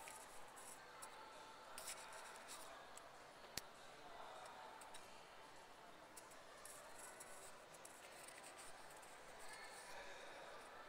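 Near silence: faint shopping-mall room tone with light rustling and one sharp click about three and a half seconds in.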